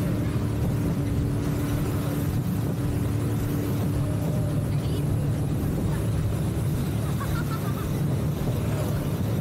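Tuk tuk engine running steadily while under way, a low, even drone with a faint higher hum that fades out about halfway through.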